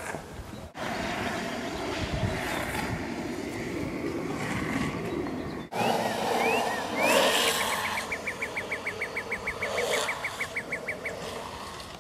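Skateboard wheels rolling on asphalt as riders come down the street, with a louder pass about six to eight seconds in. Over it, a bird sings a few short rising chirps and then an even, rapid trill of about seven notes a second lasting three to four seconds.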